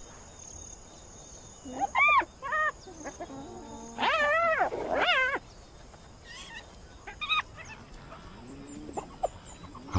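Spotted hyena cubs whining at the den: a handful of high-pitched, wavering whines and squeals, the longest about a second in and the loudest around four to five seconds in, with crickets faintly in the background.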